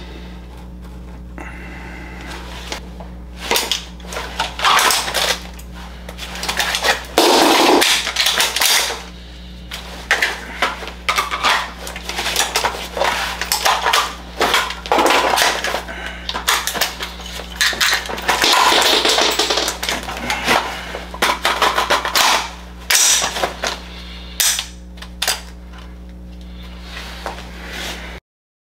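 Daniel Defense DDM4 V9 AR-15 rifle worked in dry-fire drills: repeated metallic clicks and clacks of magazines going in and out and the action being worked, with rustling of gear, over a steady low hum. The sound cuts off abruptly near the end.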